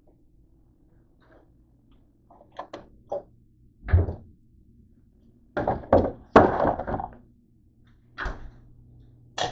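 A series of knocks, thuds and clatter from things being handled and set down on a kitchen counter, with a loud cluster of clatter from about six to seven seconds in and a sharp click near the end.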